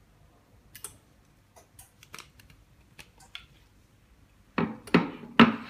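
Scattered light clicks and taps of an iPhone 6 Plus LCD and frame being handled and lifted out of a laminating mold, with three louder knocks in quick succession near the end.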